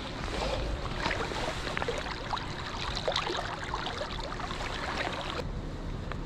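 Shallow river water running and rippling, with many small scattered splashes and drips from a landing net being worked at the surface.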